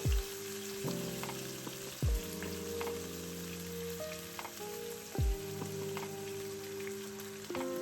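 Food sizzling and crackling as it fries in a pan, under background music of held chords with a deep bass thump every two to three seconds.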